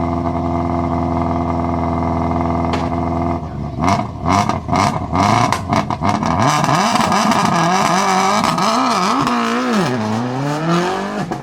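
Subaru Impreza S7 WRC's turbocharged flat-four engine running at a steady note, then about three seconds in revving hard, its pitch swinging up and down, with a quick string of sharp bangs and pops from the anti-lag system.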